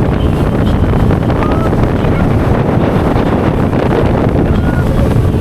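Speedboat under way: its engine running steadily and water rushing past the hull, with heavy wind buffeting the microphone.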